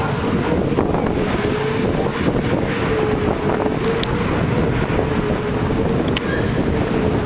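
Wind buffeting the microphone, with a steady hum held at one pitch throughout.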